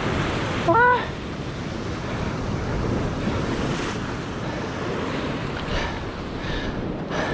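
Ocean surf washing against a rocky shore, with wind buffeting the microphone. A short pitched cry comes about a second in.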